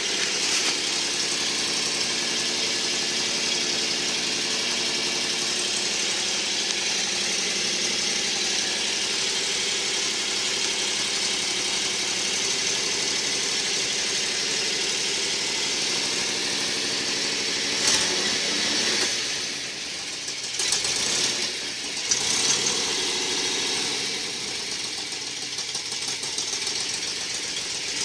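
Ford Boss 302 small-block V8 idling steadily just after a cold start, heard from inside the pickup's cab. A sharp knock comes about 18 seconds in and a few more bumps follow a few seconds later. The exhaust headers are leaking badly.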